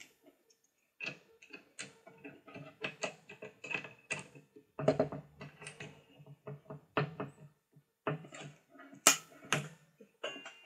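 Irregular clicks, knocks and light rattles of hands fitting a MIG torch's brass connector onto a small wire feeder, metal and plastic parts handled against each other, with a sharper knock about nine seconds in.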